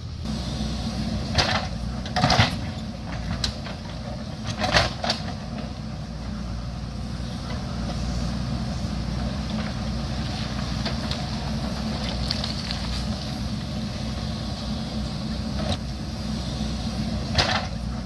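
JCB backhoe loader's diesel engine running steadily under work, with a handful of short, harsh scraping bursts as the machine works the rocky hillside.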